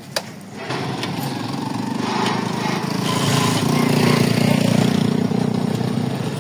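Small motorcycle engine starting up with a click and then running as the bike pulls away, growing louder toward the middle and easing off near the end.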